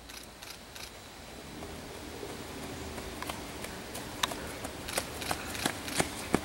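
Running footsteps on a leaf-strewn dirt trail, crisp footfalls about three a second, growing louder as the runner comes closer from about three seconds in.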